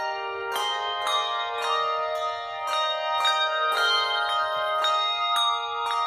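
English handbells rung by a handbell choir, playing a tune: a new strike about every half second, with several bells sounding together and their tones ringing on and overlapping.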